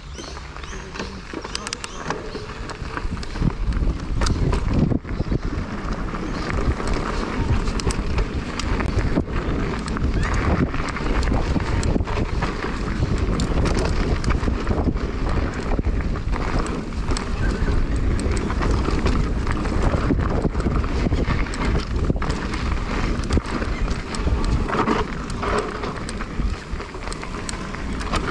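Electric mountain bike riding fast down a dry, dusty dirt trail: tyres rolling and skidding on loose dirt, wind buffeting the microphone, and a steady run of knocks and rattles from the bike over bumps.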